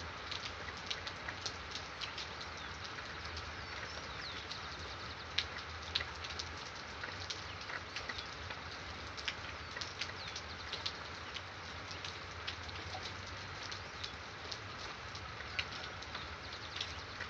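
Steady rain hiss with many scattered sharp drop ticks, and brief high bird chirps now and then over it.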